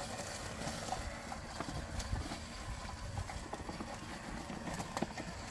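Sunseeker L22 Plus robot lawn mower running along a lawn edge: a quiet running sound with scattered, irregular light clicks and knocks.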